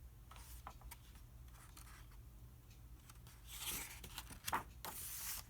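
Paper page of a picture book being turned: a few faint ticks, then two short papery rustles starting a little past halfway, over a faint steady hum.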